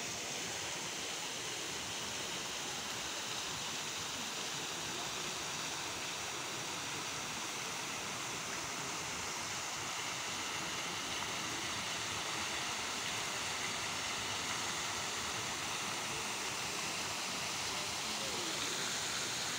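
Steady rushing hiss of falling water, a little louder in the second half.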